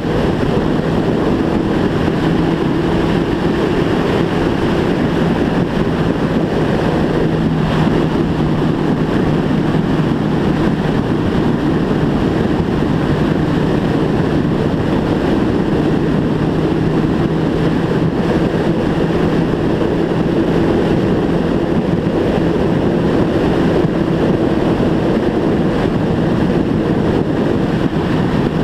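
Motorcycle engine running at a steady cruise, its drone holding one pitch, under loud wind rush on the bike-mounted microphone.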